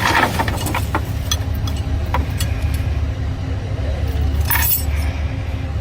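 A steady low mechanical rumble with scattered metallic clinks and clicks, and two louder rattling bursts, one at the start and one about four and a half seconds in.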